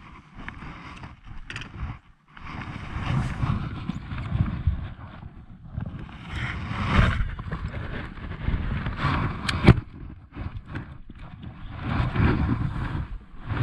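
Wind gusting over the microphone in uneven rushes, mixed with the small water and handling noises of a fishing kayak, and one sharp knock about two-thirds of the way through.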